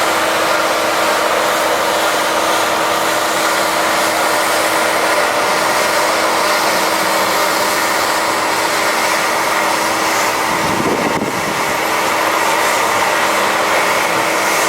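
Claas Lexion 630 combine harvester running steadily, a continuous machine roar with a steady hum. It wavers briefly about two-thirds of the way through.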